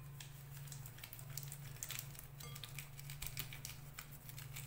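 Faint crackling and clicking of a hard-boiled egg's shell being cracked and rubbed between the fingers to peel it, over a low steady hum.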